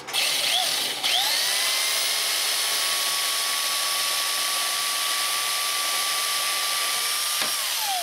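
Electric drill boring a hole through a metal plate. The motor spins up briefly, starts again about a second in, then runs at a steady whine with the bit cutting, and winds down near the end.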